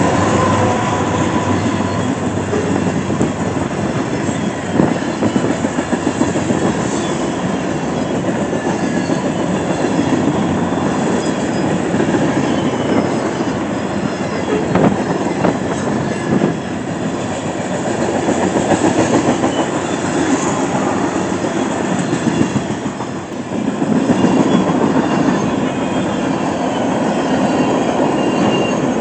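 A train rolling past at speed, its railcar wheels clattering rhythmically over the rail joints, rising and falling in loudness as the cars go by.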